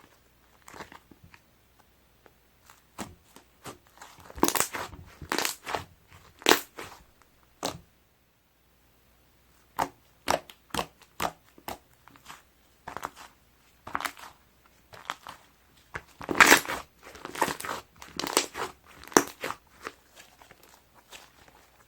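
Thick milk ice cream slime being squished and stretched by hand, giving irregular clusters of sticky crackles and pops. The sounds stop for about a second and a half partway through, then start again.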